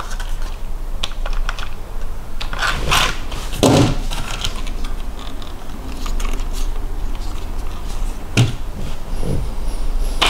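Scattered light plastic clicks and knocks from a 1/16-scale RC buggy of hard plastic being handled and turned over in the hands, with a sharper knock about eight seconds in as it is set down on a table.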